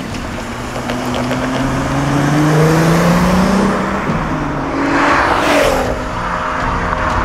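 HGP-turbocharged VW Golf V R32's 3.2-litre VR6 engine accelerating hard, its pitch rising for about three seconds and breaking off about four seconds in. A loud rush with falling pitch follows as the car passes, then the engine runs on at a steadier pitch.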